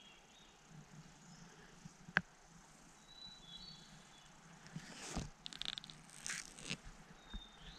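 Faint forest ambience: a few short, thin, high bird chirps, a single sharp click a couple of seconds in, and a stretch of rustling and scuffing in the second half as the handheld camera is moved across the mossy log.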